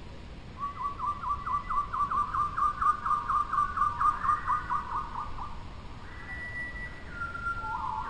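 A bird singing a fast series of clear, repeated whistled notes, about five a second, for roughly five seconds, growing louder then fading. Long, steady whistled notes follow near the end.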